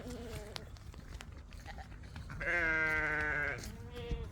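A farm animal bleating once: one long, wavering call starting about two and a half seconds in and lasting about a second.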